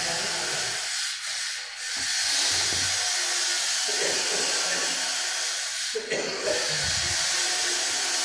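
Steady hiss of machinery running in a woodworking workshop.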